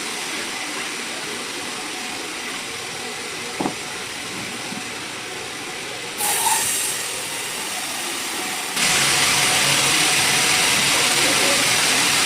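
Sawmill machinery running with a steady hissing noise, which grows suddenly louder about nine seconds in. There is a short knock about three and a half seconds in.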